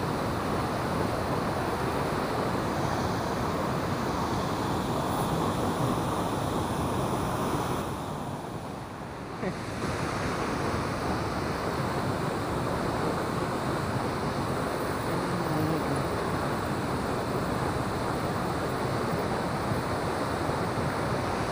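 Turbulent river water rushing out through a weir's floodgate, a steady churning noise that dips briefly about eight seconds in.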